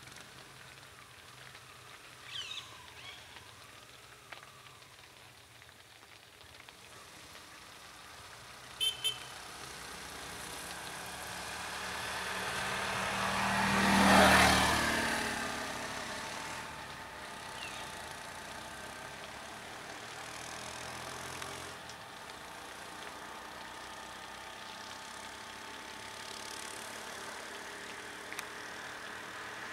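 An auto-rickshaw drives past close by, its engine growing louder to a peak about halfway through and then fading away. Two short high beeps sound a few seconds before it passes.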